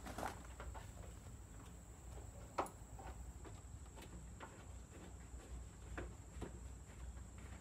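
Faint, irregular small clicks and taps of hand tools and metal parts being worked under a car's front fender, about one every half second, with one sharper click about two and a half seconds in, over a low steady hum.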